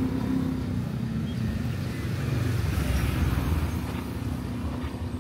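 A motor vehicle's engine running close by, a steady low rumble with a held engine tone in the first second or so, amid street traffic.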